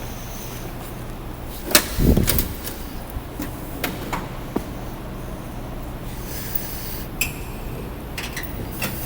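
Tool chest drawers being handled: a sharp click about a second and a half in, a short rolling thud as a drawer slides, then scattered light clicks and knocks. A steady low hum runs underneath.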